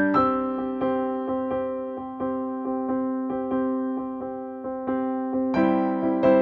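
Background music: gentle piano playing repeated notes over held chords, with a fuller, louder chord coming in near the end.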